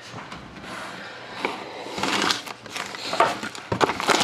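Plastic shrink wrap crinkling as it is peeled by hand off a sealed trading-card box, in irregular crackly bursts from about two seconds in; before that, quieter handling.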